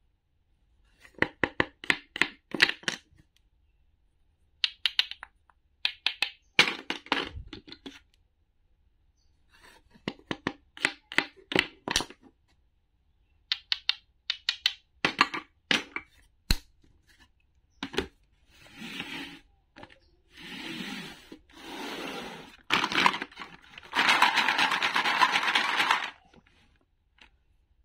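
Toy play-food pieces of wood and plastic being handled: groups of quick light clicks and taps as pieces are knocked together and set down on a small wooden board, then rustling and rattling as pieces are stirred in a plastic tray, loudest near the end.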